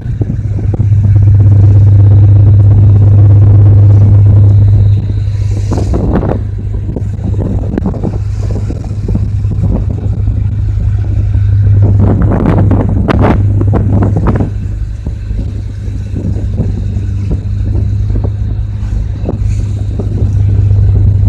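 A tugboat's diesel engine running steadily at sea, a loud low drone that is loudest in the first few seconds. A few brief rushing noises break over it about six seconds in and again around twelve to fourteen seconds.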